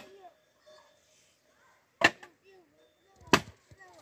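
Three sharp, hard strikes, at the start, about two seconds in and about a second later, each with a short ring after it, like blows of a tool on wood.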